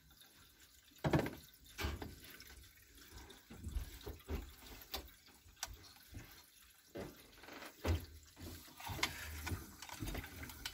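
Water gurgling and trickling through the central heating pipework and radiators as the system refills from the feed and expansion tank, in irregular spurts with small clicks.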